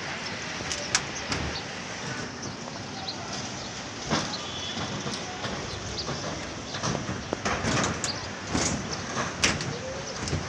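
Construction-site background noise with a few scattered knocks and clatters.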